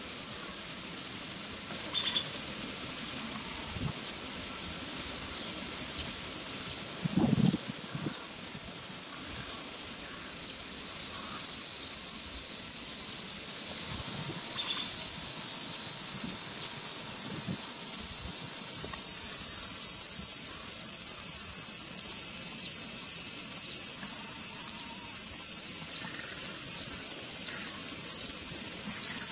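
A loud, steady, high-pitched chorus of summer cicadas droning continuously in the trees.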